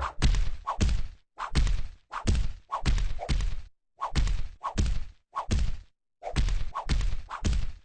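A rapid run of thumps, about two a second, coming in clusters of two or three with short silent breaks between them; each hit carries a brief falling tone.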